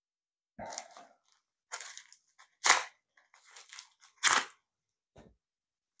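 Scissors snipping open a white padded mailing envelope, with crinkling of the packet: a handful of separate crunchy snips and rustles, two of them much louder than the rest.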